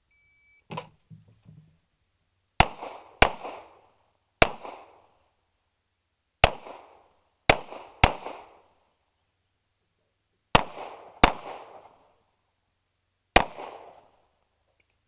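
An electronic shot timer gives a short beep, and just under a second later there is a quieter knock. Then a .45 ACP pistol fires nine shots over about eleven seconds in pairs and singles, each a sharp crack with a short echo.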